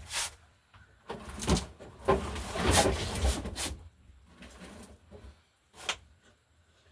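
Tools and junk being handled and moved about: a few knocks, then about two seconds of scraping and rattling, and another knock near the end.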